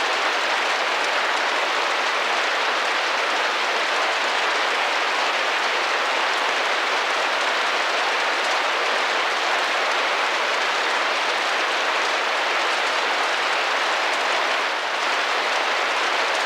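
Steady rain tapping against a glass window, a dense, even hiss with no let-up.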